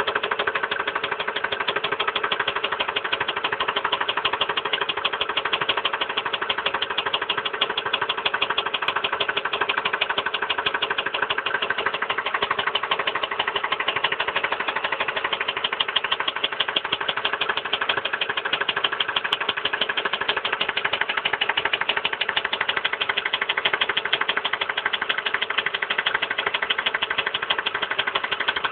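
1999 Ford Expedition's 5.4-litre V8 running steadily with a fast, even knock throughout. The knock appeared right after the intake manifold was removed and refitted and the spark plugs were replaced.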